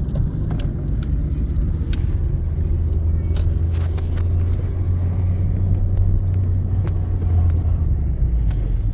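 Car driving, heard from inside the cabin: a steady low rumble from the engine and the road.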